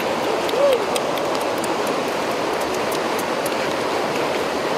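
A steady rushing noise, with faint crisp clicks of teeth biting into unripe green mangoes.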